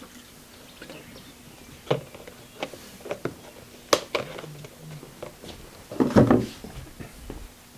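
A few sharp clicks and knocks from parts and hand tools being handled on a milling machine, then a louder, short rustling scrape about six seconds in.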